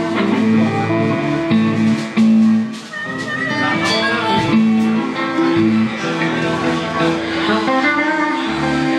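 Live blues band playing: electric guitars with held notes and quick runs over bass and drums.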